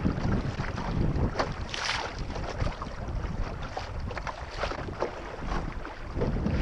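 Wind rumbling on the microphone aboard a small sailboat under way, with water washing and splashing along the hull in short hissy bursts, one larger about two seconds in.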